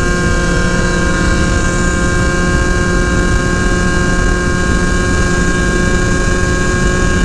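Two-stroke scooter engine held at high, steady revs while riding at speed, a constant engine note over wind and road noise on a helmet-mounted camera.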